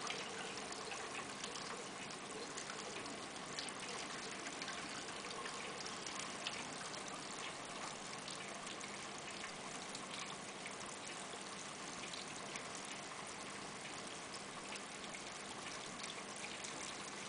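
Steady trickling and splashing of water circulating in a saltwater reef aquarium, with a faint steady hum underneath.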